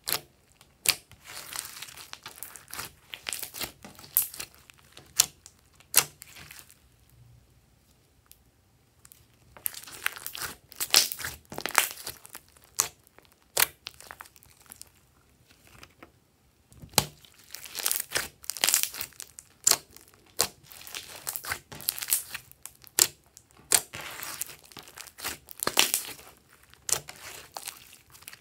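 Glossy slime being squeezed and stretched by hand: sticky crackling with sharp popping clicks, coming in bouts with a couple of short pauses.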